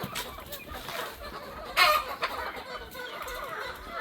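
Boschveld chickens clucking. One short, loud, sharp sound stands out just under two seconds in.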